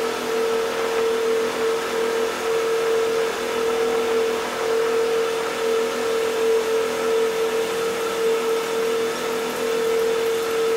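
Car ferry's machinery running as the ship comes alongside the berth: a steady drone with one constant mid-pitched tone over an even rushing noise.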